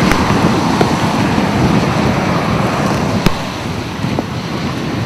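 Tornado storm wind and heavy rain rushing against a car, with steady wind noise on the microphone. A sharp click comes about three seconds in, after which the rush is a little quieter.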